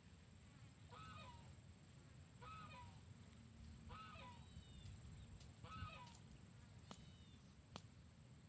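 Faint honking animal calls, four of them about one every one and a half seconds, over a steady high-pitched tone.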